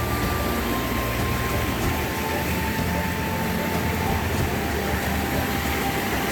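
River water rushing steadily, an even roar with no break. Faint thin steady tones sit above it.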